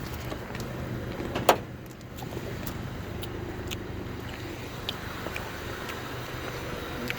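Honda D16Y1 1.6-litre four-cylinder engine idling steadily with no rod knock, after new connecting rod bearings. A single sharp click comes about a second and a half in.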